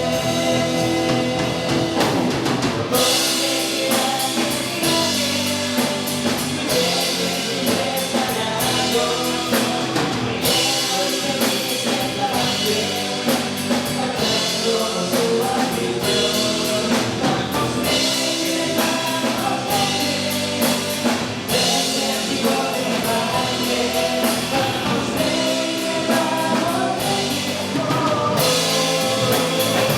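Rock-style football club anthem: singing over band music, with a drum kit coming in about three seconds in.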